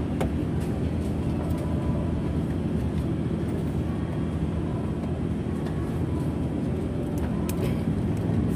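A steady low mechanical hum, like an engine or motor running, with a few faint light clicks.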